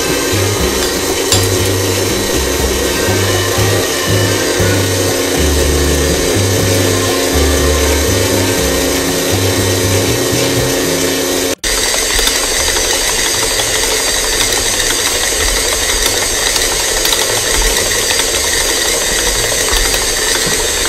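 Stand mixer motor running steadily with a dough hook kneading wet pizza dough at its second speed. There is a brief break about halfway through, after which the sound turns hissier and less deep.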